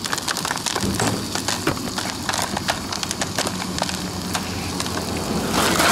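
Stovetop popcorn popping inside a foil-domed pan on a small canister gas stove: a quick irregular patter of sharp pops over a steady hiss. A louder rush of noise comes near the end.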